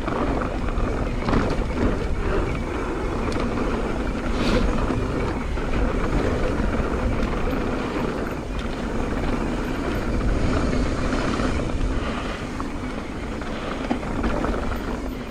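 A bike rolling fast along a dirt trail: steady wind buffeting the microphone over tyre noise, with a few brief knocks and rattles.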